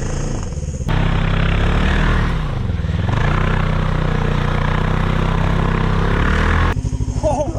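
Snowmobile engine revving hard under load, with a loud rushing noise over it; its pitch dips and climbs back about two to three seconds in. It is working through deep snow in a creek where the sled has been getting stuck.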